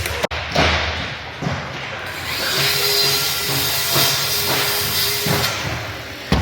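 Carpentry work in a large hall: a power tool runs for about three seconds in the middle, with scattered knocks of hammering and handling lumber around it.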